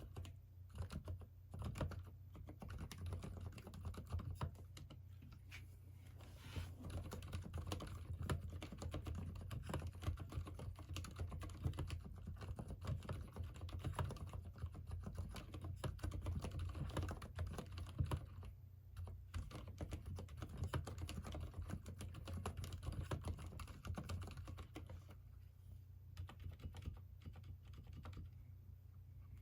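Continuous fast typing on a mechanical keyboard with Cherry MX Silent Red linear switches: rapid, soft, damped key presses in dense runs, thinning out briefly a couple of times.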